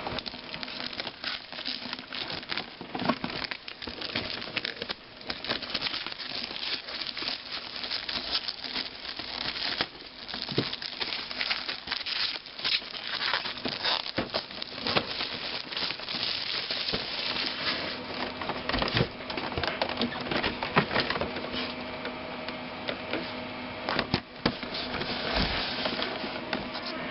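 Retail packaging being handled and unwrapped: continuous crinkling and rustling of plastic wrap and cardboard, with many small clicks and scrapes.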